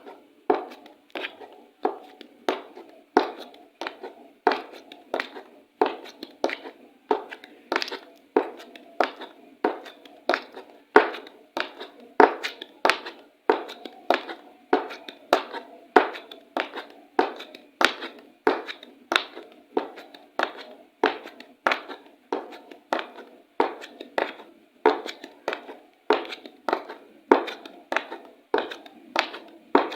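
High-heeled shoes walking at a steady pace, each heel strike a sharp click with a short tail, about one and a half steps a second.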